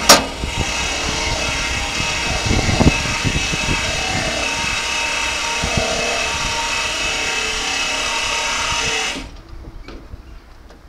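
LM Ericsson KLD-43 mechanical level-crossing bell starting with a sharp first strike and ringing steadily while the crossing barriers rise, cutting off suddenly about nine seconds in once they are up.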